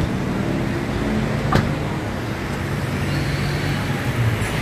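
Street traffic: motor vehicle engines running nearby in a steady low rumble, with a single click about one and a half seconds in.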